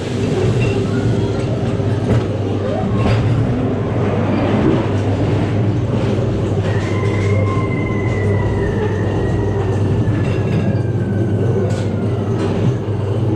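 Ghost train ride car rolling along its track with a steady low rumble and hum and occasional knocks. A faint high squeal slowly falls in pitch midway.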